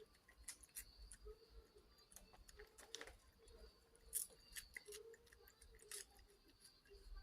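Near silence: room tone with faint, scattered small clicks and ticks, one a little louder about four seconds in, over a faint steady hum.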